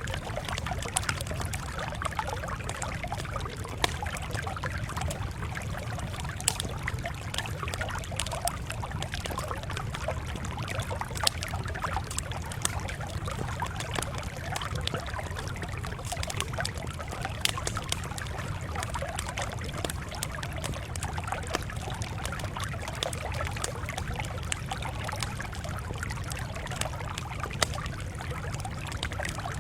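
Campfire crackling steadily, with frequent sharp pops of burning wood over a steady low rumble.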